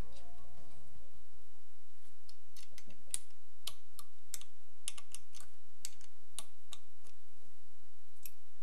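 Hex key working the screws of a machine-gun handguard as they are tightened: a run of light, irregular metal clicks, about two a second, starting about three seconds in.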